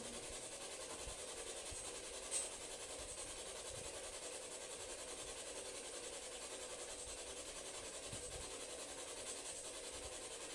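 Quiet background hiss, steady throughout, with one sharp click about two seconds in.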